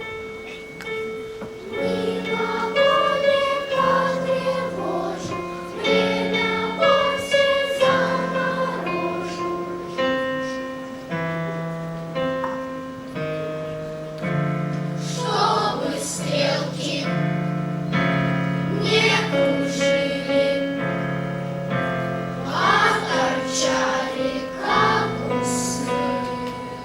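Choir singing with a piano accompaniment.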